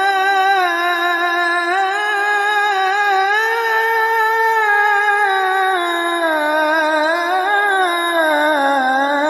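A muezzin chanting the adhan (Islamic call to prayer): one long melismatic phrase held without a break, the pitch winding slowly up and down and sinking lower near the end.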